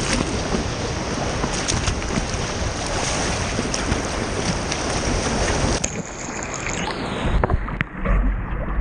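Ocean surf washing steadily, with wind buffeting the microphone. About six seconds in the wash thins out and uneven low wind rumble takes over.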